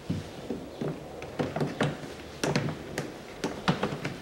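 Plastic windscreen cowl panel being worked into place under the wipers: a string of irregular plastic clicks and knocks as it is pressed and tapped down.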